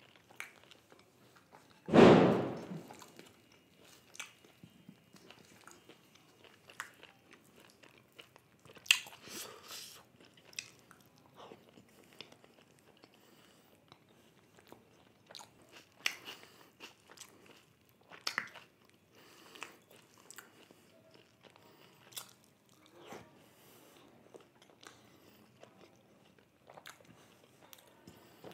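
A person eating close to the microphone: chewing and biting, with scattered wet mouth clicks. One loud thump about two seconds in.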